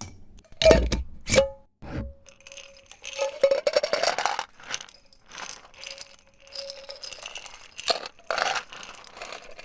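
Candy corn clattering as the small hard candies are poured and handled, with a few heavier knocks about a second in and then a long run of small clicks and rattles.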